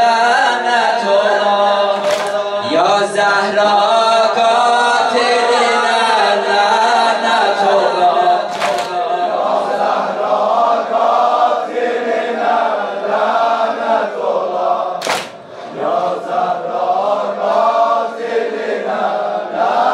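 A group of voices chanting a Turkish Shia mourning lament (noha) together in a continuous sung line. A few sharp clicks cut through about 2, 9 and 15 seconds in.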